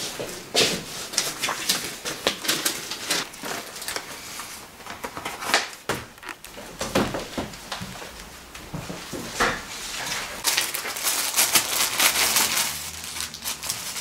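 Paper and plastic being handled: document pages rustling as they are leafed through, and clear plastic bags crinkling, in many irregular crackles and rustles that come thickest about ten seconds in.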